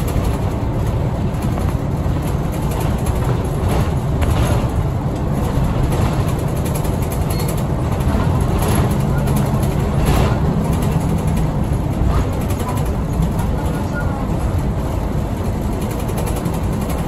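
Route bus's diesel engine running steadily with tyre and road noise, heard from inside the cabin as the bus drives along at a steady speed.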